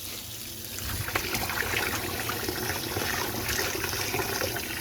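Tap water running and splashing, getting louder and fuller about a second in.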